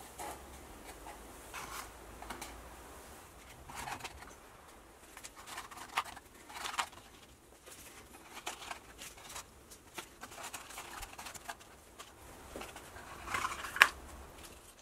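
Handling noise from a small laser-cut wooden box and its EVA foam inserts: foam pieces rubbing and scraping against the wood, with light taps. It comes as a string of short rustles and knocks, the loudest a sharp knock near the end.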